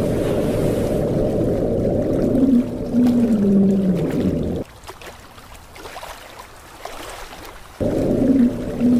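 Deep, muffled sea-monster roar sound effect ending in a falling moan. It breaks off about four and a half seconds in, leaving a quieter rumble, and the same roar starts again near the end.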